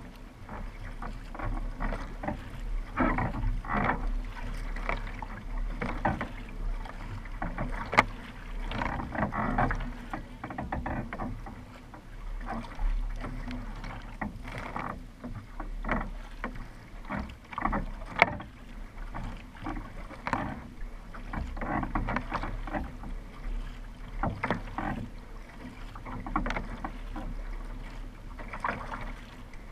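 Paddle strokes splashing into the water and water rushing along the hull of a narrow racing kayak under steady paddling, with a steady low rumble underneath. Two sharp clicks, about eight and eighteen seconds in.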